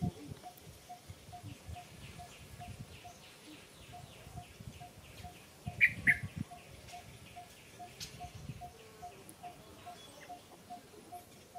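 A bird repeating one short note over and over, evenly about four times a second, with two loud, high chirps about six seconds in.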